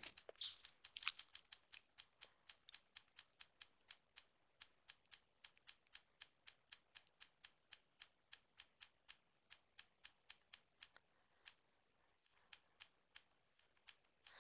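Faint, rapid computer clicks, about three to four a second, paging through presentation slides; a few in the first second are a little louder.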